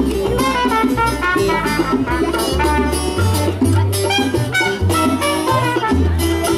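Small live acoustic band playing an instrumental passage in a Latin style: a trumpet carries the melody over strummed acoustic guitar, a walking upright double bass and hand drums.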